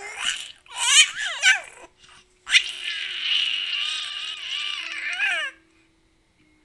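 Baby squealing happily: a few short high-pitched squeals in the first two seconds, then one long squeal of about three seconds that wavers in pitch and slides down at the end.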